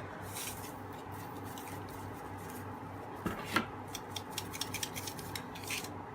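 A spoon clinking and scraping against a bowl while the chili, garlic and sugar dressing is mixed. Two sharper knocks a little past halfway are followed by a quick run of light clicks.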